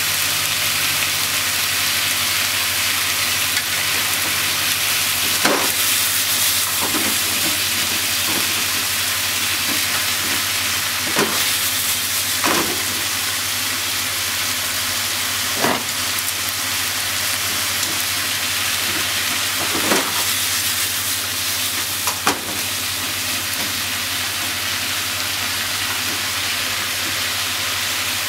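Bean sprouts, carrots, green pepper and pork sizzling steadily in a hot frying pan as they are stir-fried with long cooking chopsticks, which click sharply against the pan about six times.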